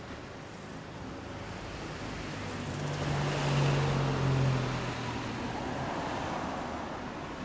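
Yamaha YZF-R1 inline-four running through a Two Brothers Racing V.A.L.E. dual slip-on exhaust with carbon silencers. Its sound swells to a peak in the middle, with a steady low note, then fades away again.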